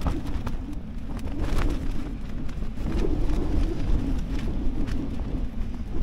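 Strong wind gusting against a KUIU Storm Star tent, heard from inside: a steady low rumble that swells and eases with the gusts as the wind shakes the tent about.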